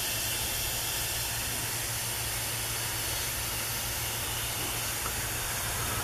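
Pressurised nitrogen hissing steadily out of a loosened refrigerant hose at a gauge manifold, as the system is bled down after its nitrogen pressure test. The hiss cuts off at the very end as the valve is closed to read the true pressure.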